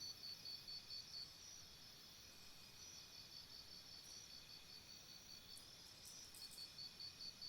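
Jungle insect chorus: one high chirp pulsing about four times a second over a layered steady drone of other insects. The pulsing chirp fades after the first second and comes back strongly near the end.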